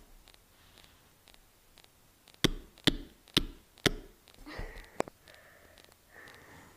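Sharp clicks or knocks of small hard objects being handled: five in quick succession, about half a second apart, then a faint rustle.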